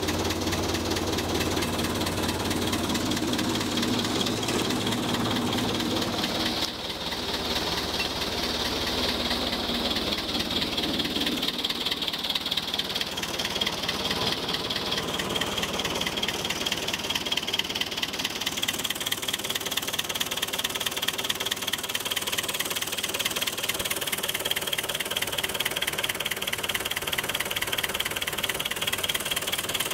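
Fordson Power Major tractor's four-cylinder diesel engine running steadily with a fast, even clatter.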